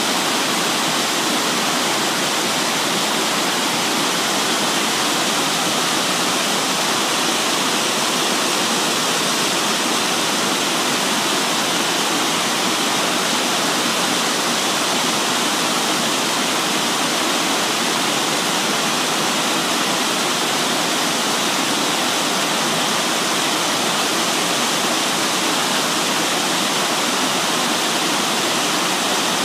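Small waterfall pouring into a rock pool: a steady, unbroken rush of falling water.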